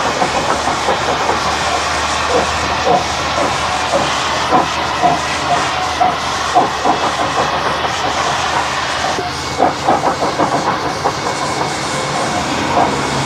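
South Australian Railways Rx-class 4-6-0 steam locomotive working up a grade: continuous steam hiss with uneven, irregular exhaust beats, heard from a moving car with the microphone out of the window.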